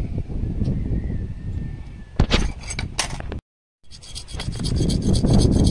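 Hand file rasping in quick strokes against metal, starting about four seconds in, after a few sharp metallic clinks from tools being handled.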